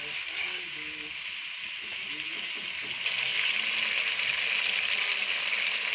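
Tomato paste sizzling as it fries in oil in a wok, a steady hiss that grows louder about three seconds in.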